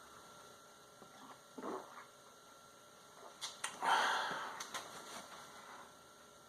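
A man taking a drink of sarsaparilla: faint handling and drinking sounds, with a short hissing, breathy noise about four seconds in that fades away.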